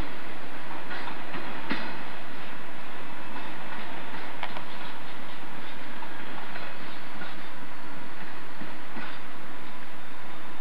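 Freight cars of a gravel train rolling past on the track, their wheels clacking irregularly over the rail joints.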